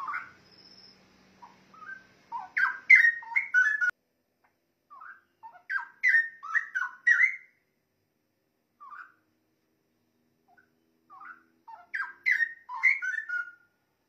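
Straw-headed bulbul (cucak rowo) singing: three phrases of rapid, rich whistled notes sliding up and down in pitch, each about two seconds long, with pauses between them.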